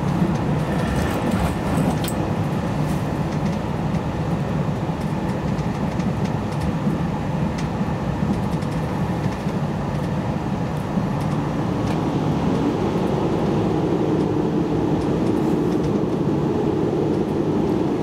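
JR Hokkaido 789 series electric express train heard from inside the passenger car while running: a steady rumble of wheels on the rails with faint scattered clicks. A low steady hum joins about twelve seconds in.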